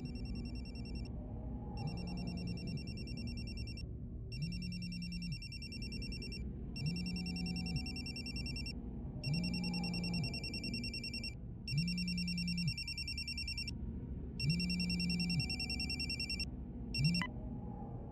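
Mobile phone ringtone ringing over and over, each ring about two seconds long with a short gap between. It is cut off partway through a ring near the end as the call is answered.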